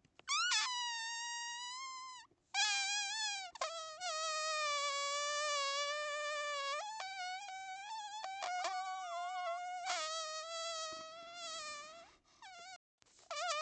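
A man's weird, high-pitched, buzzy whistle-like mouth sounds: long held notes that wobble and swoop in pitch, broken by a short pause a couple of seconds in, with a few quick chirps near the end.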